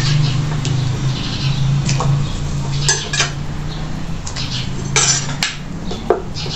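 A metal spoon clinking and scraping against a clay cazuela as pig's trotters are put into boiling salsa, with several sharp clinks in the second half. Under it is a steady low hum that fades about four and a half seconds in.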